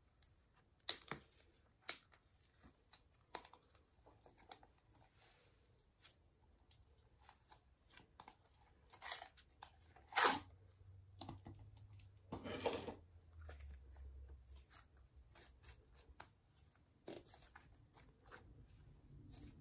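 Thick green slime being scooped out of a plastic tub and pulled apart by hand: quiet scattered sticky clicks and crackles, with a few louder tearing sounds around the middle.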